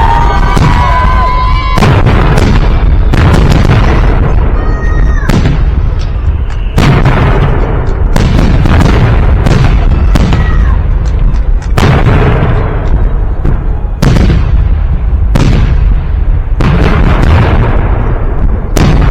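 Festive fireworks salute: loud shell bursts going off overhead about every one to one and a half seconds, over a constant deep rumble, with a few whistling tones in the first two seconds.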